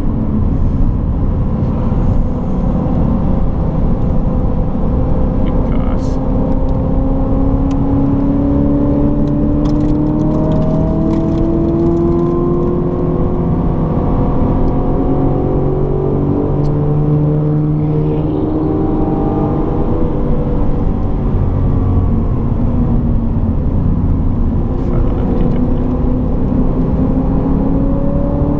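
Corvette C7 Z06's supercharged V8 under load, its pitch climbing slowly over several seconds and dropping back several times as the automatic gearbox shifts.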